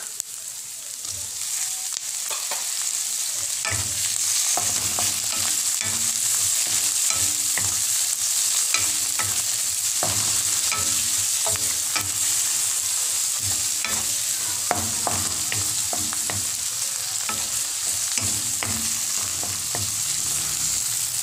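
Onion, garlic and tomato sizzling in hot oil in a metal wok, with a wooden spatula scraping and knocking against the pan in frequent short ticks as it stirs. The sizzle grows louder over the first few seconds, then holds steady.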